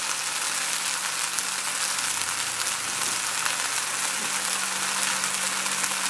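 Dried barberries sizzling in hot ghee in a pan: a steady frying hiss with a scatter of faint crackles.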